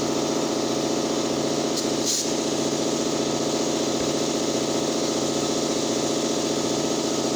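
A machine motor running steadily, an even, finely pulsing drone with no change in speed, with a short high hiss about two seconds in.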